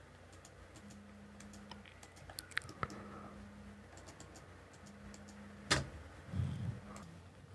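Faint computer mouse and keyboard clicks as lines are picked and trimmed in a CAD program: a few scattered clicks, the loudest about three-quarters of the way in.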